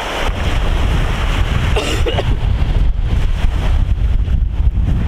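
Steady wind buffeting the microphone, with a short faint voice about two seconds in.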